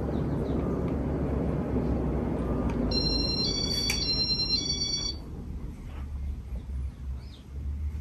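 Four-blade Casablanca Halogen Star ceiling fan running with a steady whoosh of air, which falls off about five seconds in as the fan slows down. A short electronic beeping tune, like a phone alert, plays over it in the middle, with a single click.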